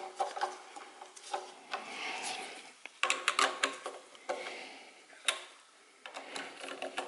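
Socket ratchet clicking in short runs as the terminal nuts on an ignition coil are tightened, with scattered light metallic tool clicks.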